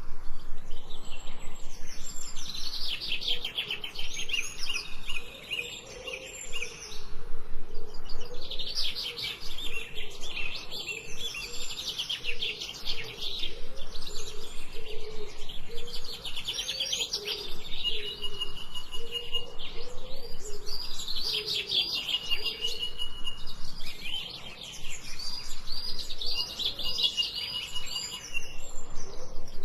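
Songbirds chirping and trilling in fast runs of repeated notes, with a short held whistle now and then.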